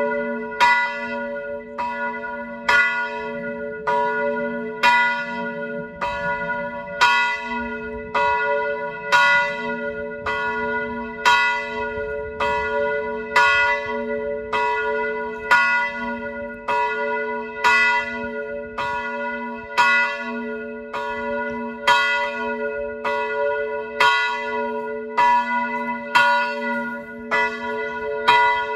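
Church bell ringing in a steady, even rhythm of strokes. Its low hum rings on continuously between the strikes.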